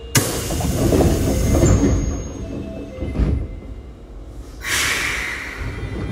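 Sounds from aboard an Osaka Metro 22 series subway train: a sudden bang just after the start, then a few seconds of low rumbling, and a burst of hiss about five seconds in.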